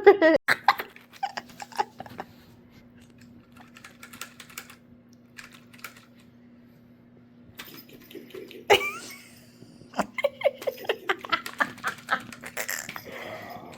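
Plastic reach-grabber tool clicking and clacking in scattered snaps, with a quick run of clicks a few seconds before the end.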